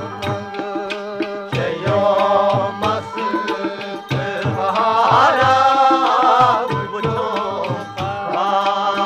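Music: a Kashmiri folk song with a steady hand-drum beat under a wavering melody line that swells to its loudest about five to six and a half seconds in.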